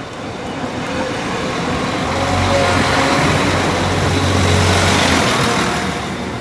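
Northern Class 195 diesel multiple unit passing close across a level crossing: the hum of its underfloor diesel engines and the noise of its wheels on the rails swell to a peak through the middle and ease off near the end.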